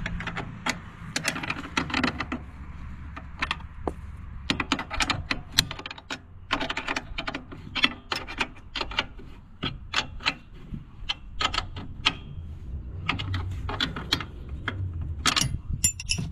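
Irregular metallic clicks and clinks of hand tools working the seat-mounting hardware on a garden tractor, some in quick runs, over a low steady hum.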